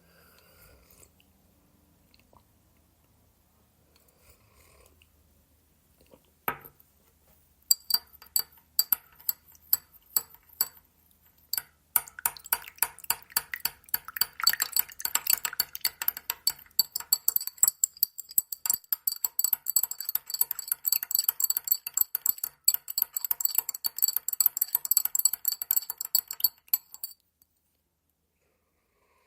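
Teaspoon stirring tea in a cup, clinking against the sides with a bright ringing ping. After a quiet start and a single knock, scattered clinks begin, turning into fast continuous clinking that stops suddenly near the end.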